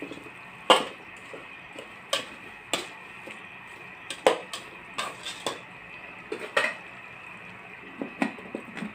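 Metal spoon clinking and scraping against an aluminium cooking pot while stirring chunks of squash and chicken, in irregular knocks with a few sharper ones. The aluminium lid is set on the pot near the end.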